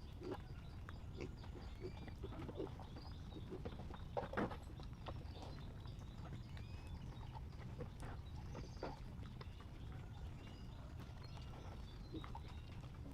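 Farm animals grunting faintly and irregularly, with scattered knocks and a louder grunt about four seconds in.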